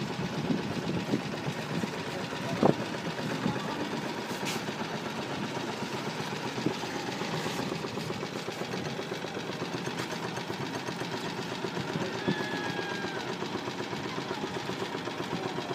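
Small boat engine running steadily with a fast, even chugging rhythm, and a single sharp knock about three seconds in.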